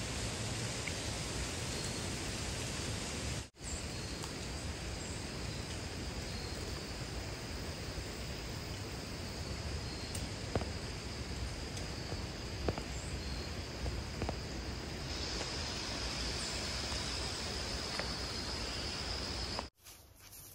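Woodland ambience: a steady hiss with a faint, high, continuous insect drone that grows stronger about three quarters of the way through. There is a brief dropout early on, and near the end the sound cuts to much quieter.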